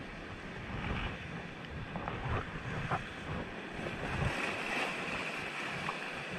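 Wind buffeting the microphone over surf breaking and washing against rocks, in uneven gusts with a few brief splashes.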